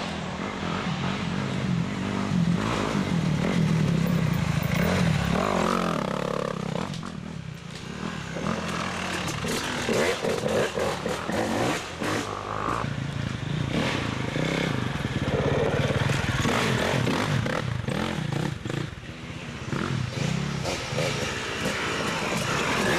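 Off-road dirt bike engines revving and accelerating, the engine note repeatedly rising and falling.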